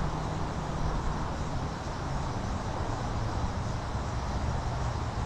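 Steady rushing of a small creek's flowing water.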